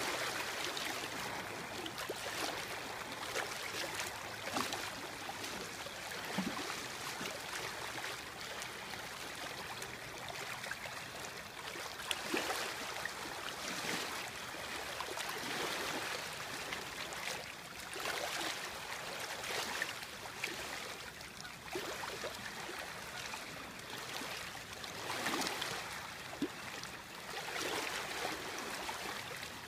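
Small river waves lapping and splashing: a steady wash of water with a soft splash every couple of seconds.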